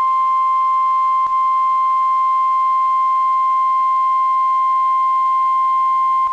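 NOAA Weather Radio warning alarm tone: one steady, loud, high single tone of about 1050 Hz that starts abruptly, with a brief dropout about a second in. It is the alarm that announces a weather warning broadcast.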